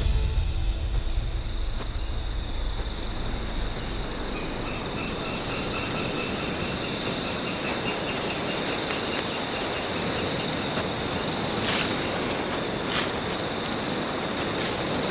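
Rainforest ambience: a steady chorus of high trilling insects over a low, even background hiss. A rapid pulsing insect chirp joins a few seconds in, and a few short sharp clicks or calls sound near the end. Soundtrack music fades out at the very start.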